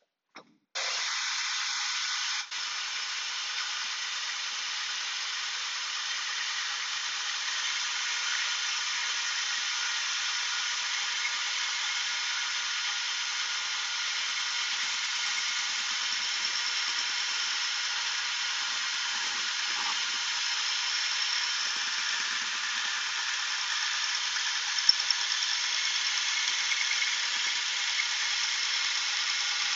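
Shopsmith bandsaw running and cutting a board lengthwise in a thin resaw along the fence: a steady, even noise that comes in suddenly about a second in, with a few small ticks near the end.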